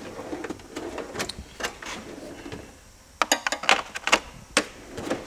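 Steel tool chest drawers sliding open and shut on their runners, with hand tools clinking in the trays: a run of light clicks and knocks, thickest from about three to four and a half seconds in.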